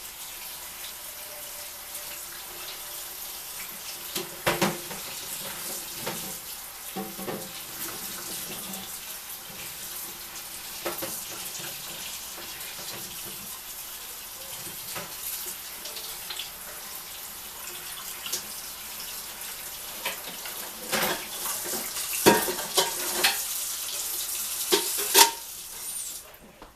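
Kitchen tap running into a sink as cauliflower florets are rinsed under it, with scattered knocks and clatters from handling them, loudest near the end. The water shuts off just before the end.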